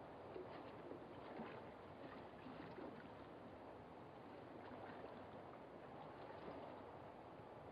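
Faint, steady wash of water lapping at the shore, under the hiss of an old film soundtrack.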